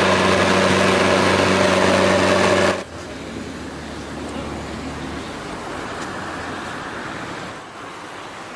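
A motor runs with a loud, steady drone and cuts off abruptly about three seconds in. The source is the engine of a pickup truck fitted with a disinfectant sprayer unit. After the cut there is only a much quieter, steady outdoor noise.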